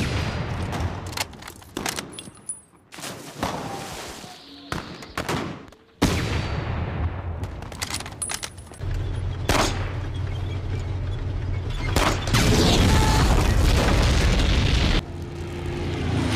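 War-film battle sound mix: rifle and machine-gun shots crack in quick, irregular succession. About six seconds in a loud blast hits, and from about halfway a dense, continuous rumble of gunfire and explosions builds, loudest near the end.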